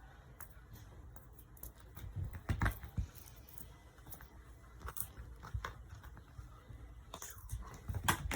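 Cats playing with a cat teaser toy: scattered small clicks, knocks and rustles, with a cluster of louder knocks about two and a half seconds in and another near the end.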